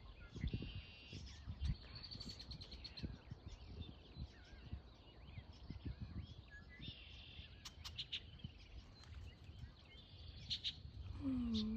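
Small birds chirping and trilling in short repeated phrases over steady low background noise.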